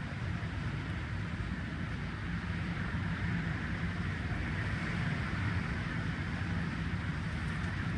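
Hurricane Irma's wind and driving rain: a steady rushing hiss, with a low rumble of wind buffeting the microphone.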